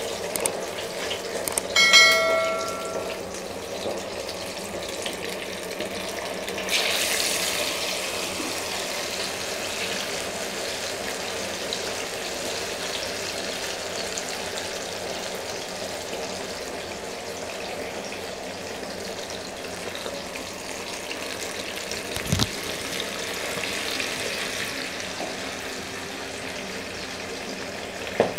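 Marinated fish pieces deep-frying in hot oil in a kadhai, a steady sizzle. About seven seconds in the sizzle flares up sharply as another piece goes into the oil, then settles. A short metallic ring comes about two seconds in, and a low knock comes later.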